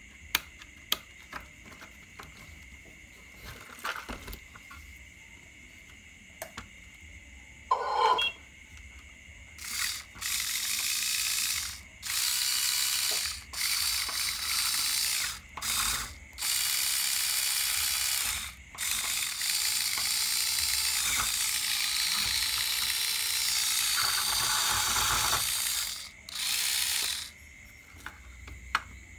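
A few handling clicks, then the Huina 1582 RC dump truck's small electric drive motor and gearbox whirring in a series of runs, each from about a second to several seconds long, as the drive wheels spin.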